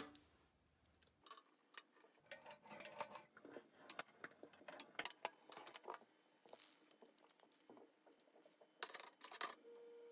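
Stainless steel bicycle pizza cutter's wheels rolling over a wooden board and cutting through sausages: a run of faint, irregular clicks and taps. A steady pure tone starts near the end.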